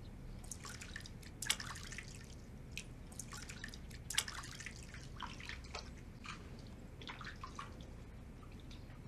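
Water splashing and dripping in a wooden basin as hands work in it: a scatter of small irregular drips and splashes, two of them louder about one and a half and four seconds in.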